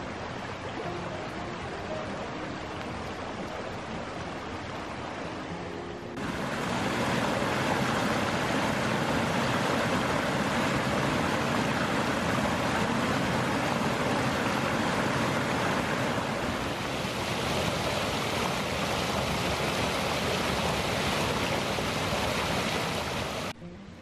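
Creek water rushing over rocks in a shallow riffle. About six seconds in, it gives way to the louder, brighter rush of a small waterfall pouring over a ledge into a pool. Just before the end it drops suddenly to a much quieter flow.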